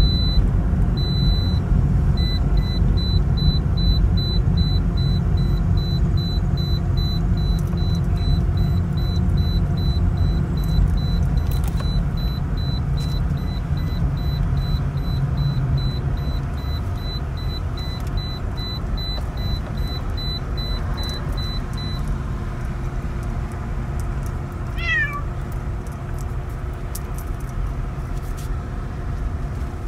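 Steady road and engine rumble inside a moving car's cabin, loudest at the low end. Over it a high, rapid electronic beeping repeats until about two-thirds of the way in, then stops. Near the end there is a short high chirp that falls in pitch.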